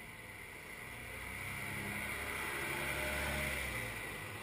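A coach bus driving past, its engine and tyre noise swelling to a peak about three seconds in and then fading.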